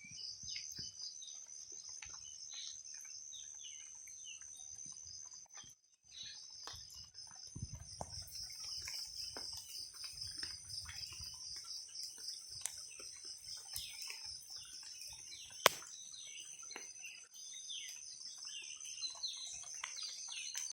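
Birds chirping and calling, many short falling chirps, over a steady high-pitched pulsing buzz. The sound drops out briefly about six seconds in, and there is one sharp click near the end.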